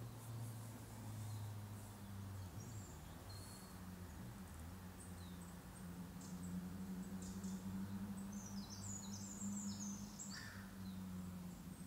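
Small songbirds calling: scattered high, thin chirps, with a quick run of notes stepping downward about nine seconds in, over a low steady hum.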